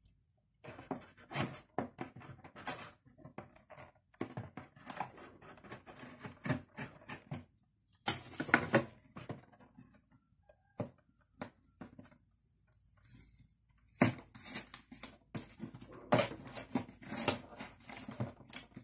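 A shipping box and its packaging being handled and dug through: irregular rustling, scraping and crackling, pausing for a few seconds in the middle.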